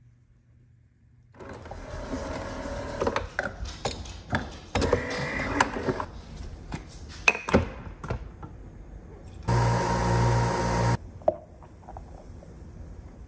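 Coffee-making at a kitchen counter: clattering and sharp clicks of cups and appliance parts being handled, then a loud steady electric buzz from the coffee machine for about a second and a half near the end.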